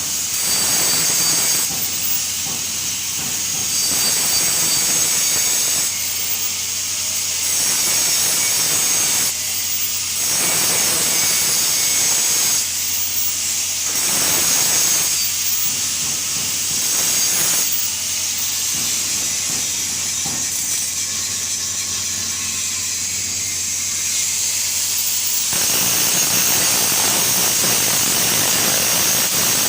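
TIG (GTAW) welding arc hissing steadily over a low electrical hum, its tone shifting every second or two.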